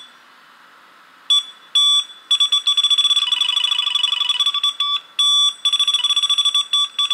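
High-pitched electronic beeping: two short beeps, then fast, stuttering runs of beeps broken by brief gaps, used as a logo sound effect.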